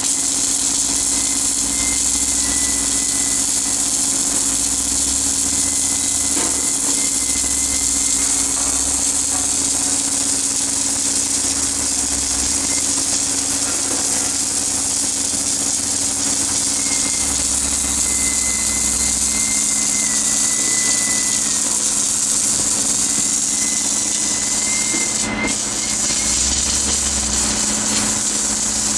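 Submerged arc welding rig running: a steady machine hum with a constant high hiss from the flux-covered arc and equipment, and a deep rumble that cuts in and out every few seconds. The Lincoln Electric power source is set to square-wave output for 3/32 steel wire.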